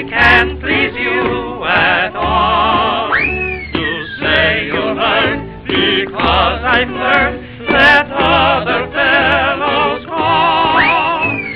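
An old dance-band recording of a sung verse: a singer with a strongly wavering voice over an orchestra accompaniment. Twice, about three seconds in and again near the end, a high note swoops up and then slides down.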